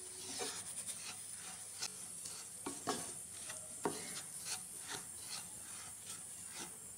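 Wooden spatula stirring and scraping grated coconut as it dry-roasts in a pan, a rough scrape with each stroke, about two a second. The coconut has roasted to brown.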